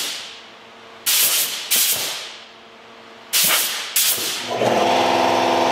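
Blue painter's tape being pulled off the roll in four short ripping bursts, then a longer pull near the end that squeals with a steady tone for about two seconds.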